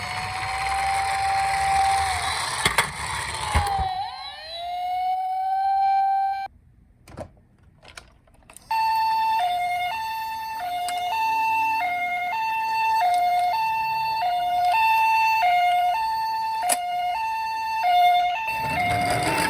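Electronic siren sounds from toy emergency vehicles: a wailing siren that rises and holds for a few seconds over a rough noise, then a short pause, then a two-tone high-low siren alternating about twice a second, like a Japanese ambulance's 'pee-po'. Near the end the rough noise starts up again.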